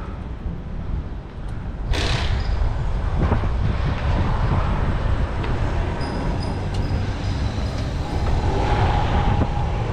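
Wind rumble on the microphone and road traffic noise while riding a bicycle. There is a sudden noise about two seconds in, after which it runs louder.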